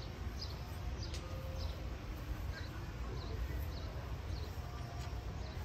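A bird calling over and over with short high chirps, roughly two a second, over a steady low outdoor rumble.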